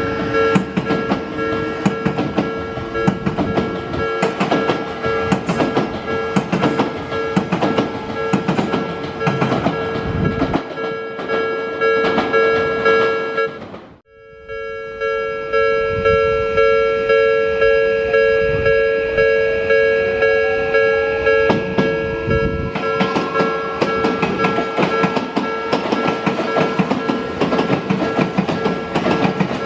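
Japanese railway level-crossing warning bell ringing in a steady beat while trains pass. In the first half an Odakyu train clatters over the rail joints. After a cut, an Odakyu 1000-series and 3000-series train pulls away with a rising motor whine, and the joint clatter builds again near the end.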